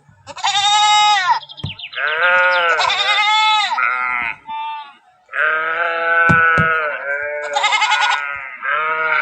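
Several sheep bleating, one after another and overlapping: long, wavering calls at different pitches, with a brief pause about five seconds in.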